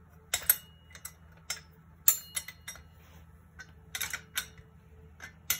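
Metal wrench clicking and clinking against the axle nut and steel frame while the nut is tightened: a string of irregular, sharp clicks, some with a short metallic ring.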